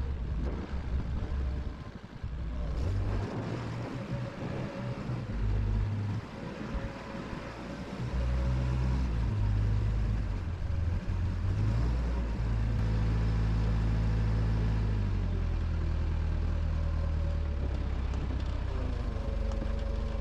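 An engine running, its low note and loudness shifting in steps. It runs more continuously and louder through the second half.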